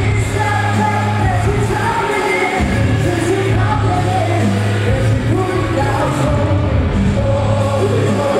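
Loud pop music with a sung vocal over a heavy, steady bass line; the bass drops out briefly a few times.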